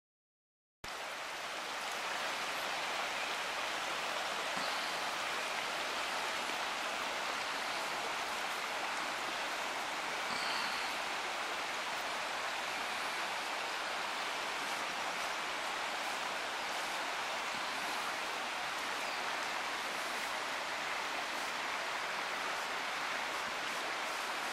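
Steady rushing of a river's flowing water, starting abruptly just under a second in after silence.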